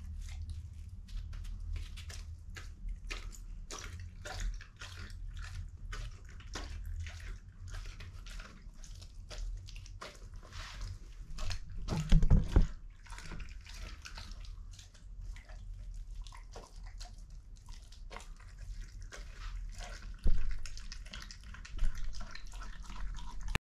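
Belgian Shepherd dog chewing and licking a slab of raw meat: a steady run of smacking, clicking mouth sounds, with a few louder thuds about midway and near the end. The sound cuts off suddenly just before the end.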